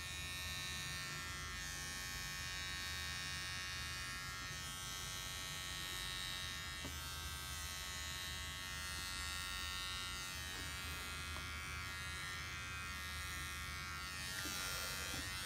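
Electric beard trimmer running steadily as it shaves the hair from a woman's head.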